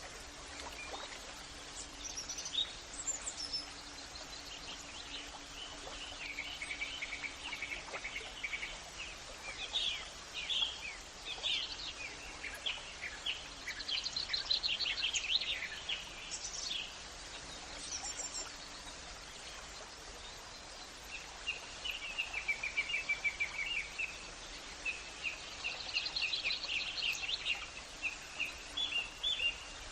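Several birds chirping and calling over a steady background hiss, with rapid trills about halfway through and again near the end.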